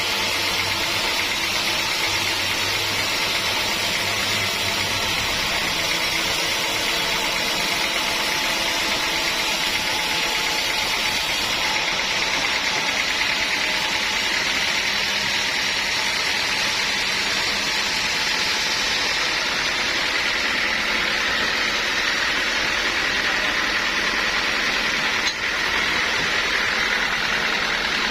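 Sawmill machinery running steadily: a continuous mechanical noise with faint steady tones. A low hum drops out about six seconds in.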